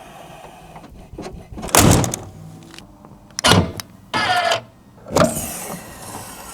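A BMW E39 M5's power windows and other electric body parts working in short runs: four brief whirs and clunks spread over a few seconds, the third with a steady motor whine.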